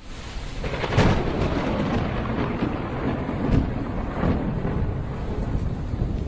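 Thunderstorm: a thunderclap about a second in rolls into a rumble over steady rain, with a second sharp crack a little past the middle.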